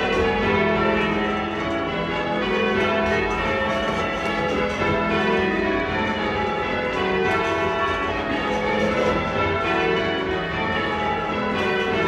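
Church tower bells rung full circle in English change ringing: a continuous, even stream of overlapping bell strokes.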